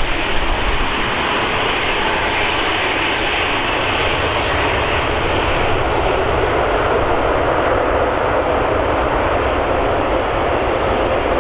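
Jet airliner engines running loud and steady as the plane passes the runway; the noise deepens in pitch over the second half.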